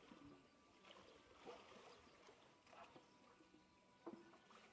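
Near silence: faint water sloshing as a polar bear swims in its pool, with a few soft splashes.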